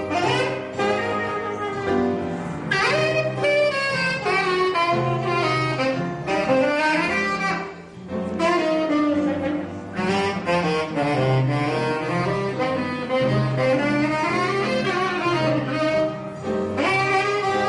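Instrumental break of a swing-style jazz song: horns play the melody over a walking bass line.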